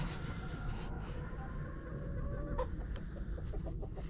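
Chickens clucking softly, with a quick run of short clucks near the end, over a steady low rumble.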